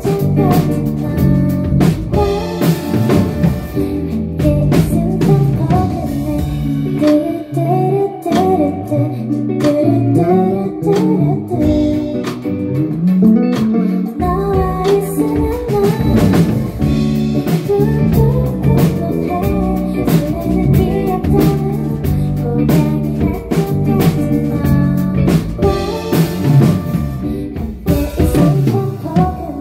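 Live band song: a woman sings lead vocals into a microphone over guitar and a drum kit.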